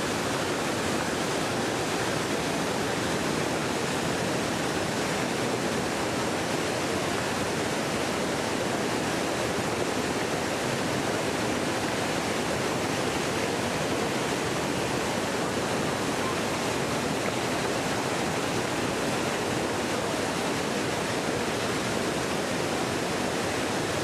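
Iguazu Falls, a steady, dense rush of heavy water plunging into its pool, with no change throughout.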